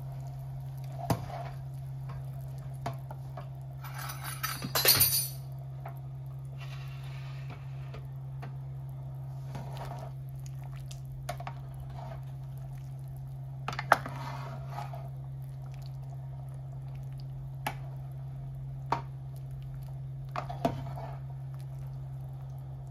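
Metal ladle and utensils clinking and scraping against a stainless steel pot of soup: a loud cluster of scrapes and clinks about five seconds in, then scattered single clinks. A steady low hum runs underneath.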